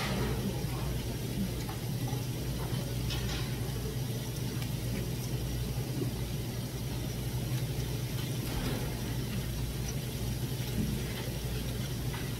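Steady low mechanical hum of the restaurant's background machinery, with a few faint clicks of tableware.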